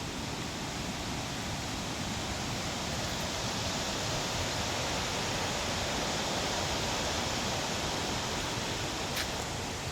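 Waterfall rushing in a steady roar of falling water, swelling slightly in the middle.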